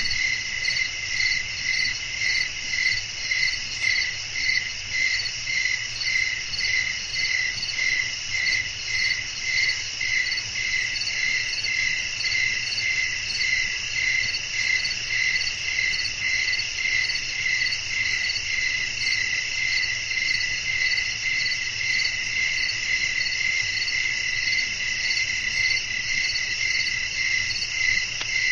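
Crickets chirping in a steady night chorus, one chirping in even pulses about twice a second over a continuous higher trill.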